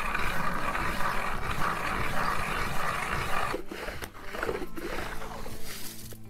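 Hand ice auger's blades cutting through the ice as it is cranked: a steady grinding scrape that breaks up about three and a half seconds in into a few uneven scrapes and knocks as the auger is worked out of the hole.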